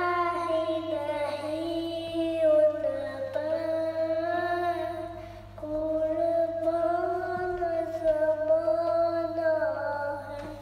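A young boy chanting an Islamic devotional recitation into a handheld karaoke microphone, in long, held, wavering notes, with a short pause for breath about halfway through. A steady low hum runs underneath.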